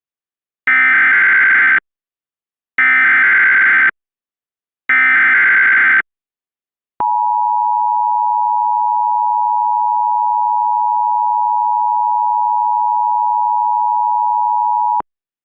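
Emergency Alert System tones: three one-second bursts of SAME header data, each followed by a second of silence, then the EAS attention signal, a steady two-tone alarm held for about eight seconds and cut off sharply.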